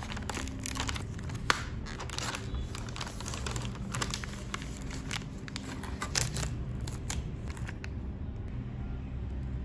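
Plastic snack wrapper crinkling as it is handled and torn open, a run of scattered sharp crackles.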